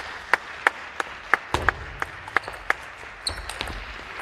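Table tennis rally: the plastic ball clicking sharply off rackets and table at a quick, even pace, about three hits a second. A brief high squeak and low thuds come about three seconds in, as the hits grow fainter.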